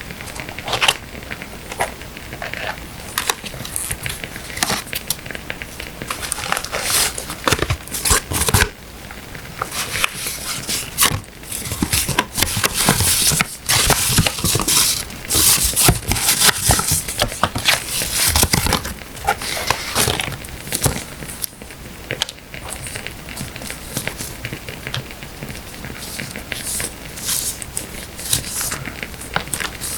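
Paper and sticker sheets being handled up close: crinkling and rustling, with many scattered sharp crackles. It is busiest in the middle stretch.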